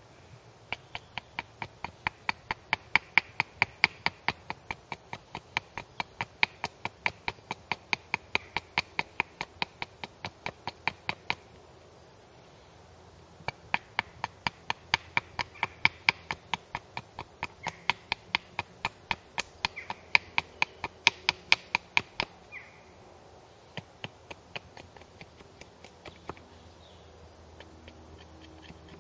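Hatchet chopping a wooden splitting wedge into shape on a chopping block: quick, light strokes about four a second. They come in two long runs with a pause of a couple of seconds between them, then a few scattered taps.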